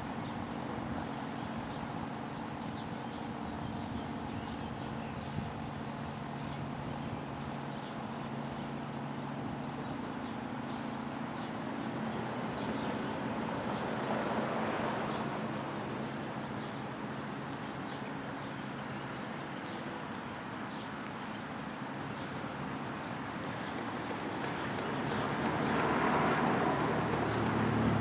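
Road traffic: a steady low hum with vehicles passing, one about halfway through and another near the end.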